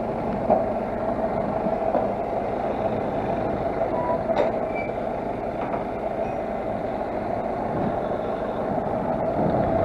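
A vehicle engine running steadily, with a couple of light knocks and one short high beep about four seconds in.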